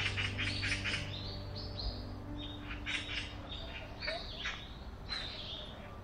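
Small songbirds chirping, many short rapid calls and trills overlapping one another.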